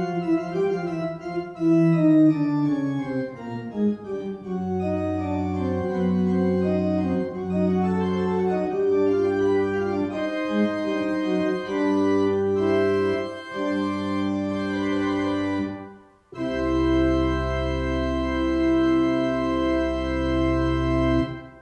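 Church organ playing the closing bars of a fugue in C: a falling run leads into held chords over a sustained pedal bass, then after a brief break a final chord with a very deep pedal note is held for about five seconds and released.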